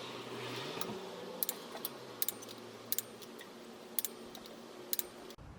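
Click-type torque wrench clicking on brake rotor bolts set to 10 newton metres: five sharp metallic clicks, several of them doubled, about a second apart.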